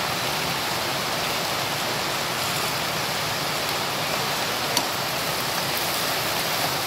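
Malabar spinach (alugbati) leaves sizzling in a hot pan, a steady hiss. About four seconds in, a spatula starts stirring them, with one light click against the pan.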